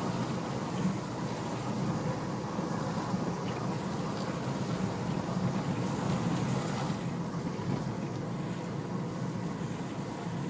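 A car driving along a road: steady engine and tyre noise without any sudden events.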